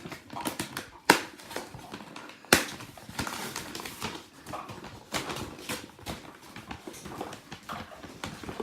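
A tool set's box and case being opened and handled: a run of clicks, rustles and knocks, with two sharp knocks about one and two and a half seconds in.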